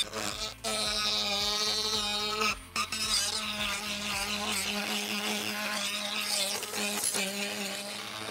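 Small, deliberately low-powered rotary tool with a conical burr bit grinding support marks off an SLA resin print: a steady motor whine that wavers slightly in pitch as the bit bears on the part, dipping briefly twice near the start.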